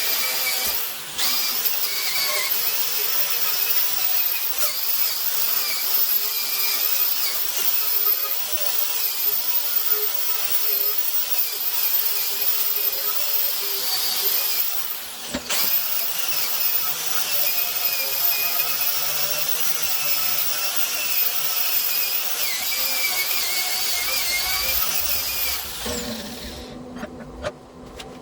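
Electric power tool running on steel with a steady high-pitched whine that wavers in pitch under load. Near the end it winds down, goes quiet briefly and starts up again.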